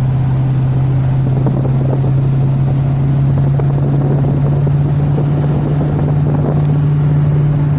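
Steady low drone from the front of a Fiat Novo Uno Way 1.0 cruising above 100 km/h, heard from inside the cabin over road and wind rush. The uploader puts this horrible noise down to worn engine mounts.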